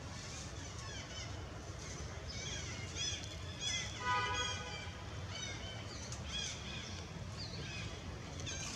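Baby macaque crying for milk as it is being weaned: a run of short, high-pitched squealing cries, with one longer whining cry about four seconds in.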